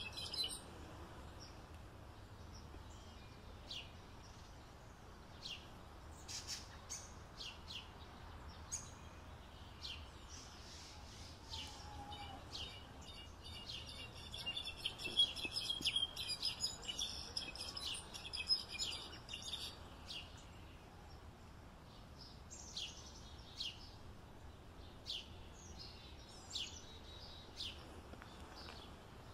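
European goldfinch singing: scattered short chirps, then a long run of fast, liquid twittering through the middle, over a steady low background hiss.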